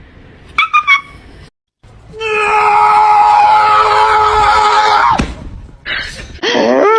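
A long, loud scream held at one pitch for about three seconds, after a few short yelps. Near the end a dog starts to howl, its cry rising into a steady held note.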